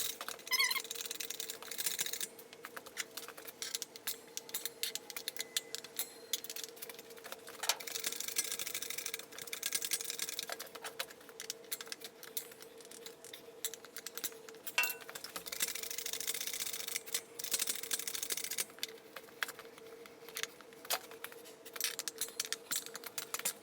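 A hydraulic shop press and an ATV wheel being worked to break a tire bead: scattered metal clicks, knocks and rattles over a steady faint hum, with a few spells of hiss lasting two or three seconds each.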